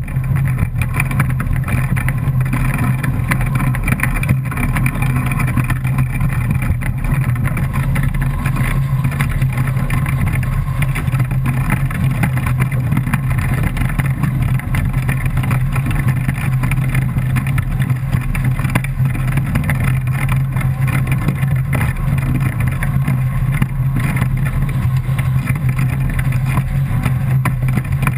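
Steady rush of wind and water on an A-Class foiling catamaran sailing at speed, with spray coming off the hull. A heavy, constant low rumble from wind buffeting the camera's microphone runs beneath it.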